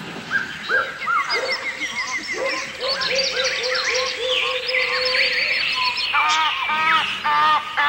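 Many birds calling at once: overlapping chirps, whistled trills and rapid repeated notes. From about six seconds in, a louder call with several overtones repeats quickly, about three times a second.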